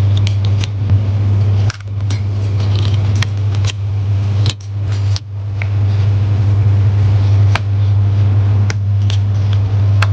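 A steady low electrical hum from bench equipment, with scattered small clicks and taps from handling laptop parts during a MacBook Pro screen-gasket replacement.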